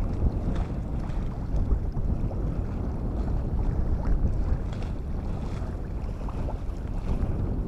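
Wind buffeting the microphone as a steady, uneven low rumble, with waves washing in.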